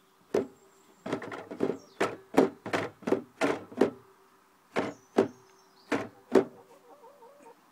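Sliding panel of a ChickenGuard automatic coop door knocking and rattling in its metal frame as it is worked by hand: about fifteen sharp knocks at uneven spacing, bunched in the first four seconds, over a faint steady hum.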